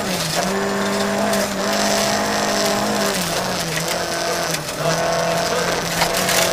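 Volvo 940 Evo rally car's engine running hard at steady revs in fifth gear, heard from inside the cabin over rough gravel and tyre noise. The engine note dips briefly three times, near the start, about three seconds in and shortly after.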